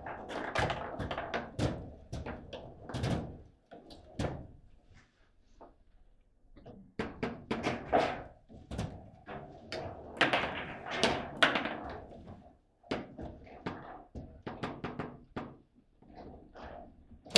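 Table football in play: irregular sharp clacks and knocks of the ball being struck by the rod figures and hitting the table walls. There is a short lull about five seconds in and a hard hit at the very end.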